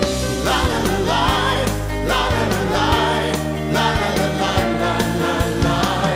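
Christian worship music with drum beats, sustained low notes and a wavering, vibrato-like lead melody.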